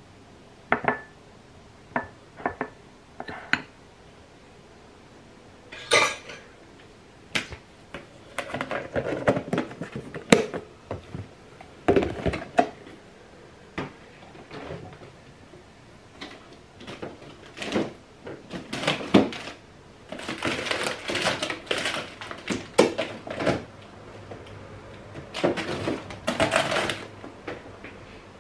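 A metal spoon scraping ice cream from a plastic tub and clinking against a bowl: a scattered run of sharp clicks and knocks, with longer stretches of scraping and handling noise.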